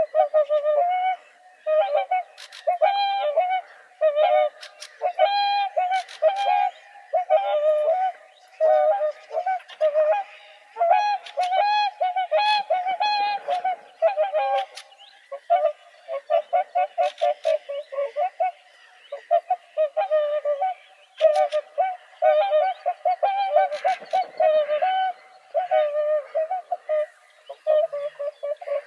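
Swans calling: a long run of short, repeated pitched calls with brief pauses between groups.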